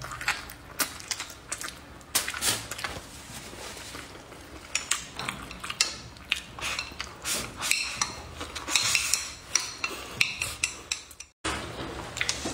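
Close-miked eating: chewing, and chopsticks clicking and scraping against a plate as rice is shovelled into the mouth. The sound drops out for a moment near the end.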